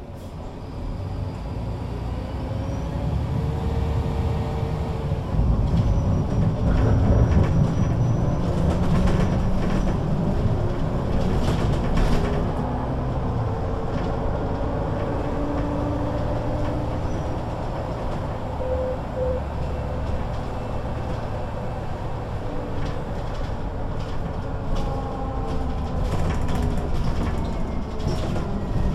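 MAN NG 313 articulated bus with a straight-six diesel and Voith automatic gearbox, pulling away and building speed over the first few seconds, then running steadily under a deep rumble with faint gear whine.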